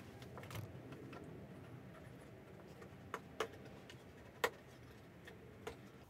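Small pieces of wood being handled on a workbench: soft rubbing and shuffling with several light, sharp clicks and taps of wood on wood, the sharpest about three-quarters of the way through.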